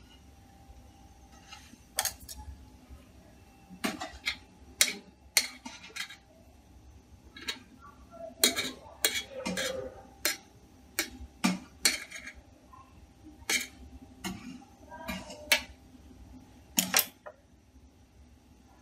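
Irregular sharp clicks and light scrapes of a knife and fingers against a stainless steel plate, about fifteen separate taps, as thin strips of khandvi are loosened and rolled.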